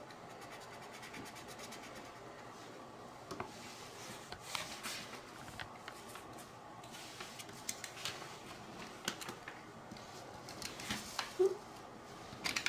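Faint scratching of a felt-tip marker on paper, then scattered light clicks and rustles as marker pens are handled and set down.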